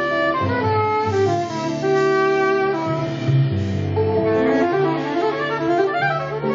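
Live small-group jazz: a saxophone playing a moving melody over an upright double bass line, with a drum kit behind.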